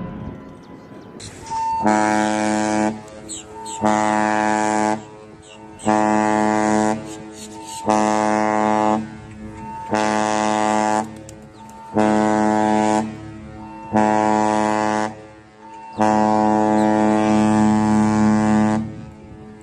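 Cruise ship's horn sounding the general emergency alarm: seven short blasts about a second long, two seconds apart, then one long blast of about three seconds. This is the signal that calls passengers and crew to their muster stations.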